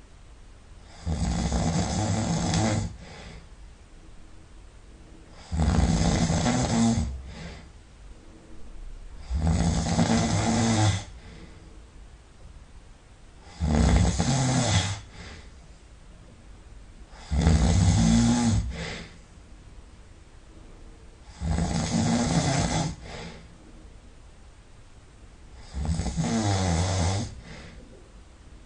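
A person snoring loudly in deep sleep: seven long snores, each about one and a half to two seconds, coming regularly about every four seconds with quieter breathing between.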